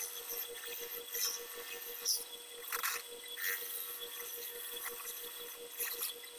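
Belt-driven wood lathe running with a steady hum while a hand-held turning tool scrapes the spinning wooden spindle in several short hissing strokes.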